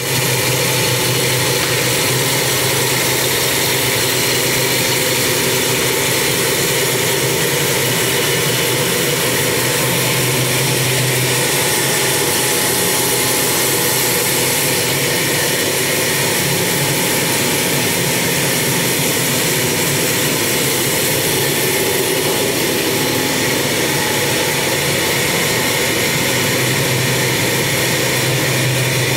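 Newly built single-cylinder vertical steam engine running, a steady mechanical noise with hiss.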